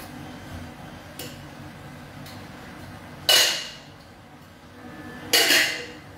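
Two loud, short clattering noises about two seconds apart, each starting sharply and fading over about half a second, with a few faint knocks before them, as bar equipment is handled at a drinks counter.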